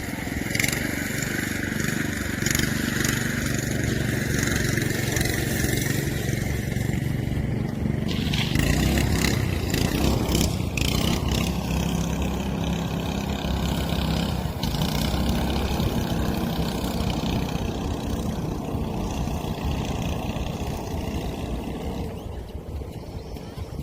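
A motor vehicle's engine running steadily, its pitch shifting about halfway through.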